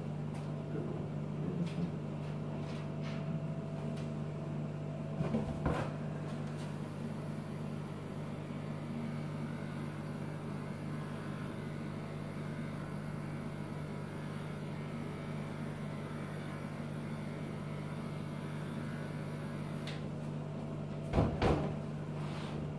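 Electric grooming clippers running with a steady hum while trimming a dog's paw, with a couple of brief knocks, about five seconds in and near the end.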